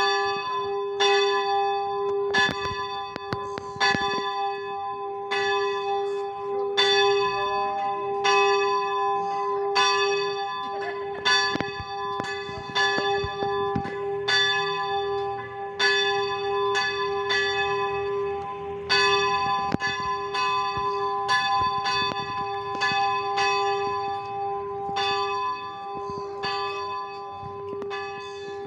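A single church bell struck over and over in an uneven rhythm, about one and a half strokes a second, each stroke sounding the same ringing tones, with the bell's hum carrying on between strokes. It begins abruptly with the first stroke.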